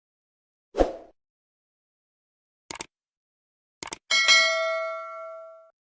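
A single thud, then two pairs of quick clicks, then a bright bell-like chime that rings with several overtones and fades out over about a second and a half.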